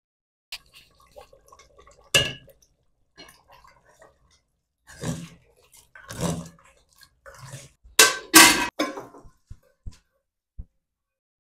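Metal ladle stirring mutton curry in a metal cooking pot: irregular scrapes and knocks of the ladle against the pot, loudest about eight seconds in, then a few short sharp clicks near the end.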